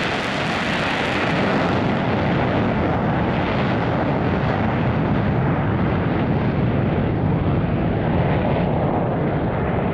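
Twin F404 turbofan engines of an F/A-18 Hornet at full afterburner on its takeoff roll: a loud, steady jet noise whose high hiss gradually fades as the jet accelerates away down the runway.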